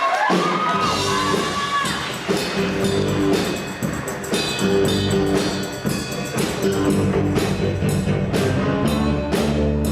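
Band music with drums keeping a steady beat under sustained pitched notes; the drum hits come in from about two seconds in.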